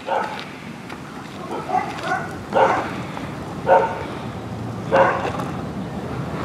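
A dog barking repeatedly, short barks about once a second, over the low steady rumble of longboard wheels rolling on asphalt.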